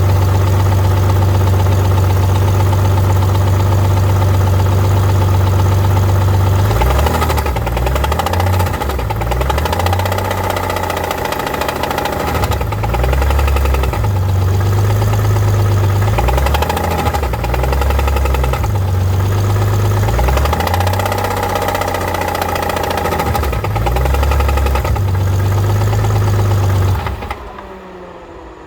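Rebuilt BMW E46 engine running at a steady speed, then revved up and down repeatedly, making a weird noise above 2000 rpm that the owner puts down to timing he cannot set correctly. Near the end the engine is shut off and winds down.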